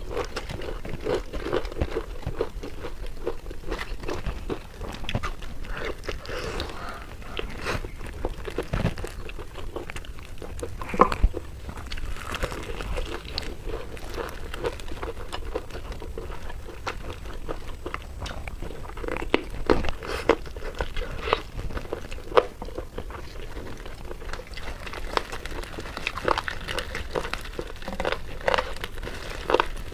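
Crispy fried chicken being bitten and chewed: irregular crunches of the coating, with a few louder bites among them.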